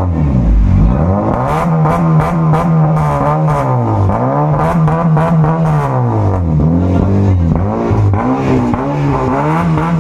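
Honda Civic engine revved up and falling back several times in a row, heard through a newly fitted Greedy-style dual-tip oval chambered muffler. A few crackles come through on the early revs.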